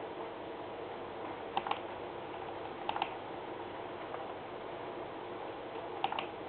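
Three quick double clicks of a computer mouse as on-screen pages are stepped through: one a little over a second in, another about a second later, and a last one near the end. Under them is a steady room hum with faint steady tones.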